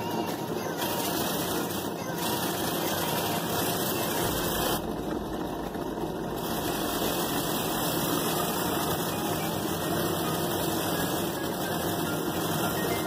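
Benchtop drill press running a sanding drum, its motor humming steadily while the edge of a wooden piece is pressed against the spinning drum and sanded.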